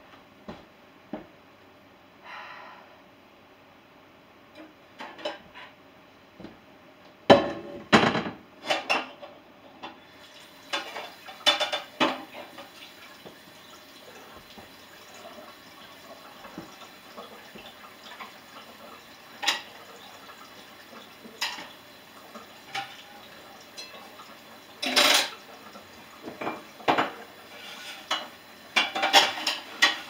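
Dishes and cutlery clattering as a dishwasher is unloaded: scattered clinks and knocks of plates and silverware being handled and set down, loudest in clusters about seven to nine seconds in and around twenty-five seconds.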